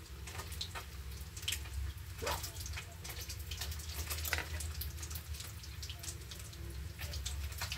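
Water dripping and lightly splashing with scattered small clicks, as a wet hand and a metal ladle move over a basin of leaves soaking in water.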